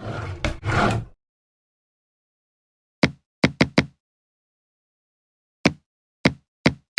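A scraping rustle lasting about a second, then a series of sharp knocks from hard objects: four in quick succession about three seconds in and three more near the end, with dead silence between.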